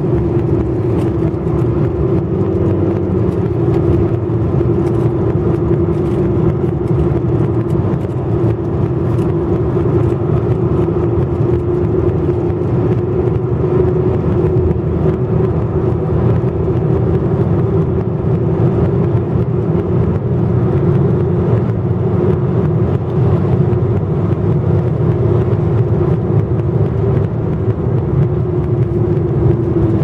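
A vehicle running at a steady speed: a constant hum over heavy low road rumble that holds even throughout.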